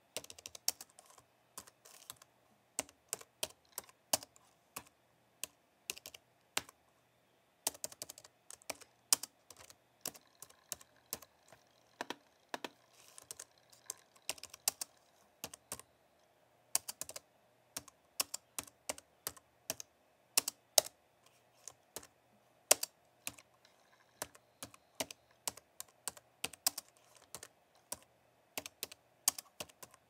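Typing on a low-profile white keyboard: runs of quick, irregular key clicks with brief pauses between them.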